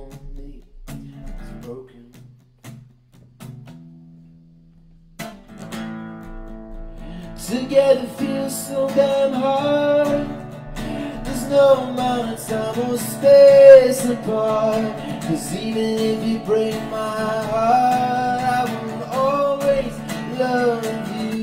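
Acoustic guitar and a man singing: a few soft picked notes at first, then strummed chords from about five seconds in, with the singing louder and held over them.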